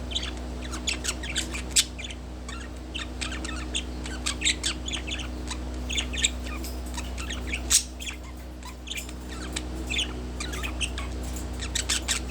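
Budgerigar chattering: a quick, uneven run of short high chirps and clicks, with a couple of sharper, louder chirps about two and eight seconds in, over a steady low hum.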